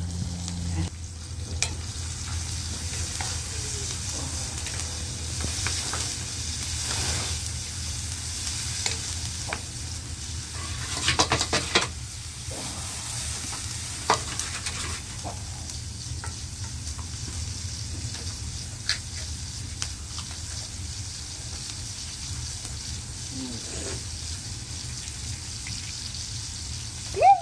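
Eggs sizzling steadily as they fry in a hot pan, with a cluster of sharp clicks and knocks about eleven seconds in and a few single clicks later.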